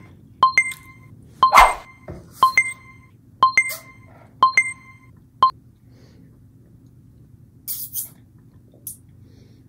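Electronic timer alarm beeping in quick pairs about once a second, signalling that the challenge time is up, then stopping about five and a half seconds in. There is a short rush of noise at about a second and a half in, and a few brief high hisses near the end.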